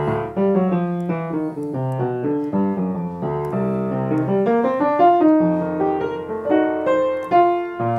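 Upright acoustic piano played with both hands, the melody carried in the left hand and brought out above lighter right-hand chords.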